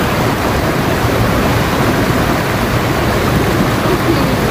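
Shallow, fast river running over a rocky bed: a loud, steady rush of water.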